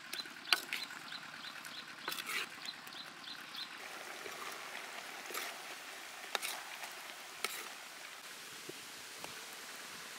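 Chicken drumsticks in sauce simmering in a wok over a wood fire, a steady bubbling hiss broken by occasional sharp clicks. A bird chirps in short, rapidly repeated notes during the first few seconds.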